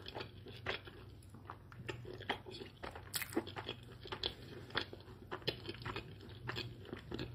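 Close-miked chewing of a bite of crispy fried egg roll: irregular small crunches and clicks, a few a second.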